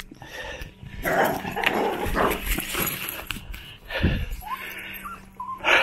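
A dog whining and yipping, with a short rising whine about four and a half seconds in.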